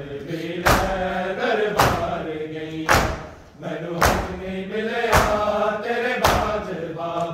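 Men beating their chests in unison (matam), one loud open-hand slap about every second, while male voices chant a mourning noha between the strikes.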